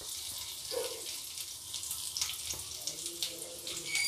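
Chopped garlic sizzling in hot oil in a kadai: a steady hiss dotted with small crackles.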